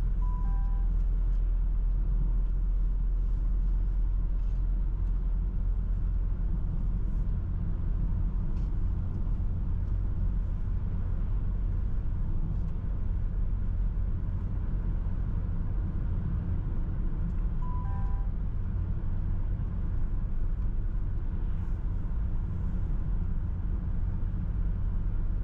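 Steady low rumble of a car's road and engine noise heard from inside the cabin while driving. A short electronic chime of a few notes sounds near the start and again about eighteen seconds in.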